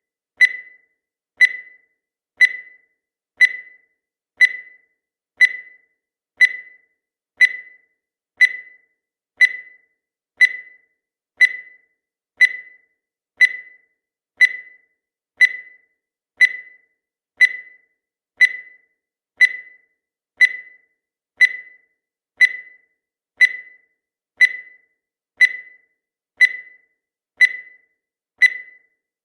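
Countdown timer sound effect: a short, high beep once every second, each one fading quickly.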